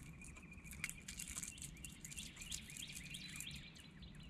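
Small birds chirping in the background: a held high note, then a quick series of short rising chirps. Faint scattered clicking and pattering sounds run throughout.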